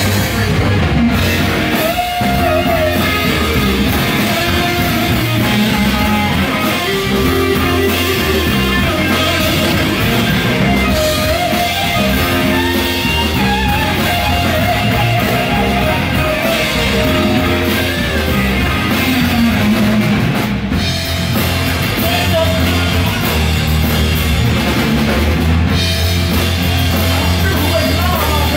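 Live rock trio playing loudly: electric guitar, bass guitar and drum kit.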